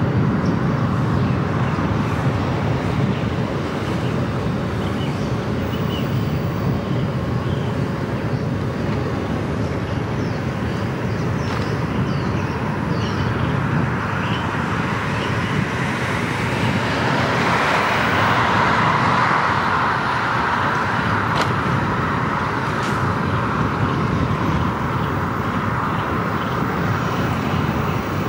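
Steady road noise from a vehicle driving along a city road, tyres and wind on the move. It swells louder for a few seconds just past the middle, then settles again.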